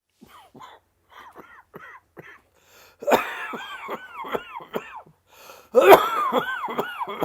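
A person coughing from a Covid-19 infection: a few faint, short coughs at first, then two loud fits of rapid coughs with a wheezy, pitched sound. The first fit starts about three seconds in and the second, the loudest, near six seconds.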